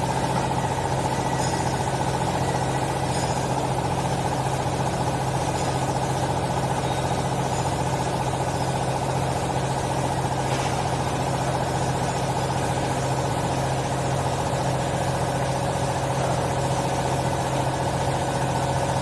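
Hydraulic vertical textile baler's power unit running with a steady hum, cutting off abruptly at the end.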